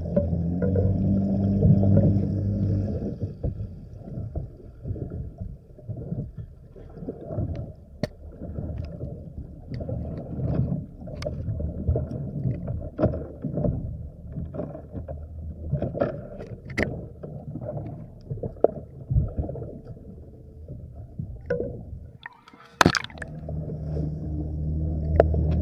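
Muffled, low-pitched sound picked up by a camera held underwater: irregular knocks and bumps against the camera, with a steady low hum in the first few seconds and again near the end. A single sharp, loud burst comes shortly before the end.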